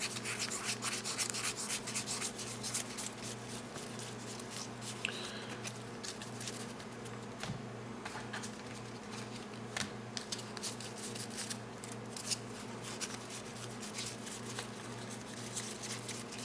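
A stack of NBA Hoops basketball cards being flipped through by hand, the card edges sliding and snapping against one another in quick, irregular ticks and rubs.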